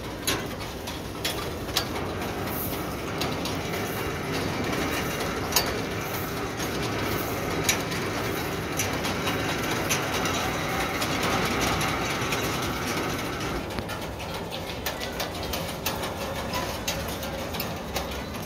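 A hand-pulled river cable ferry crossing. The pontoon makes a steady rumbling noise, and the steel guide cable and its fittings give frequent sharp clicks and rattles.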